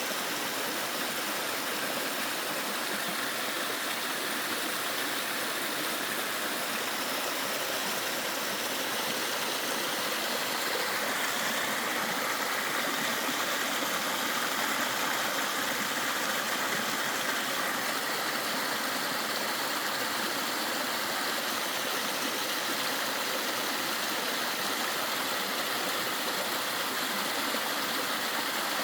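Mountain stream rushing over rocks, a steady wash of water noise that grows a little louder about ten seconds in.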